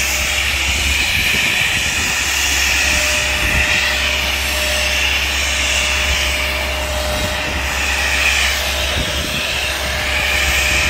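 Tracked boom tree-trimming machine running steadily, with a high whine that swells and fades several times over its engine.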